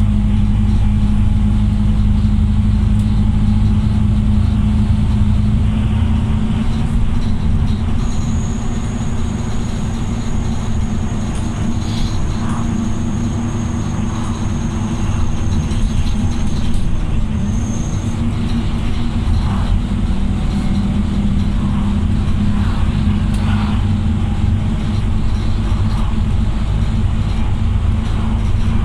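Optare Olympus double-decker bus running along the road, heard from inside on the upper deck: a steady low engine drone with tyre and road noise and faint rattles. A thin high whistle sounds for about ten seconds in the middle.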